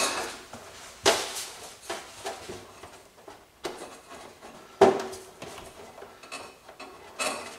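Cables and plugs being handled and pulled from the back of a wall-mounted TV: light clicks and rattles with three sharp knocks, about one, three and a half and five seconds in, the last the loudest.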